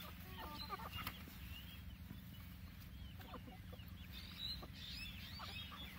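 A flock of chickens clucking as they forage, with short calls scattered through, busiest in the first second or so.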